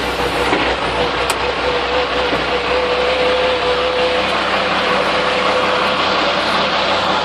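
Sisu TD1612 truck's Valmet diesel engine running steadily, with a steady whine over the engine noise.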